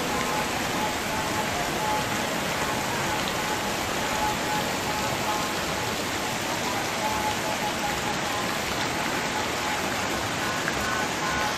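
Heavy rain falling steadily: a dense, even hiss of rain on grass, leaves and roofs.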